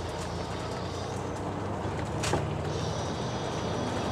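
Steady rumble of a moving vehicle heard from inside, with a sharp click a little past halfway and a faint high whine coming in soon after.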